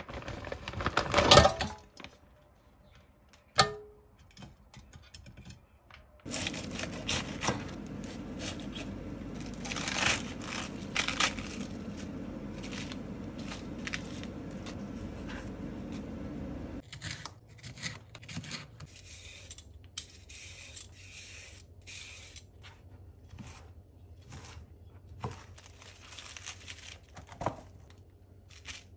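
Home kitchen prep: frozen chicken tenders clatter from a plastic bag into an air-fryer basket, and one sharp knock follows. Then comes about ten seconds of steady running water as lettuce is washed. After that, short taps and rustles as the lettuce is handled and cut with a knife on a cutting board.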